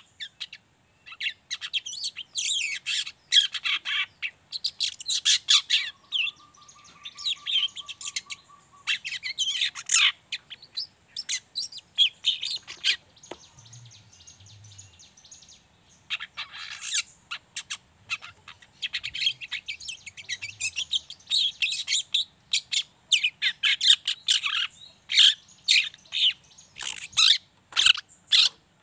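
Juvenile long-tailed shrike (cendet) giving its 'ngriwik' song: rapid bursts of high, scratchy chattering twitters, repeated in clusters with short pauses between.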